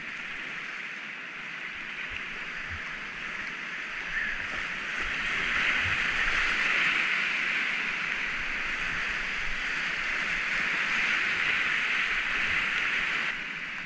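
Whitewater rapids rushing around a kayak on a river running at 75 m³/s: a steady hiss of churning water. It swells about five seconds in and eases off again near the end.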